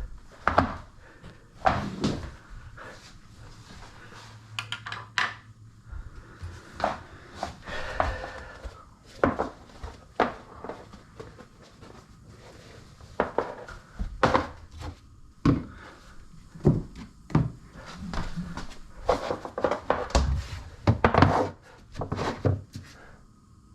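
Irregular knocks, clunks and rattles of hard objects being handled and set down, about one every second, with a brief low hum about four seconds in.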